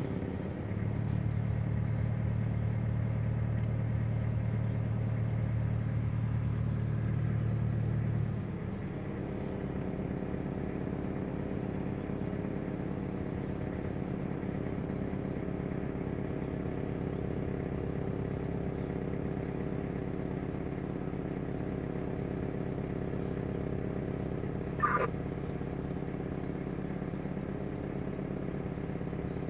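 Engine droning steadily, heard from inside a car's cabin while the car rides a river car ferry. Its deeper hum drops away about eight seconds in, and a brief high squeak sounds near the end.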